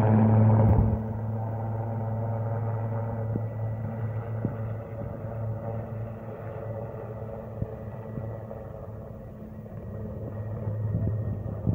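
Denel Rooivalk attack helicopter flying a display pass: a steady low rotor drone with a faint turbine whine above it. It drops in level about a second in, fades, then grows louder again near the end.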